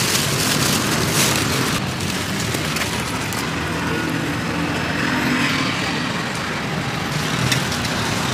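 Plastic carrier bags crinkling and rustling as they are handled, most busily in the first two seconds, over a steady wash of street traffic noise.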